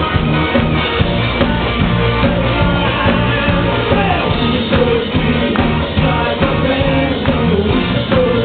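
Live rock band playing, recorded loud from the audience: electric guitar, bass and drums on a steady beat, with a voice singing over them partway through.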